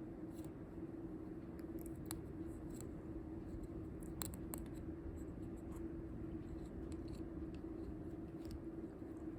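Faint scattered scratching and ticking from a cat being brushed, over a steady low electrical hum.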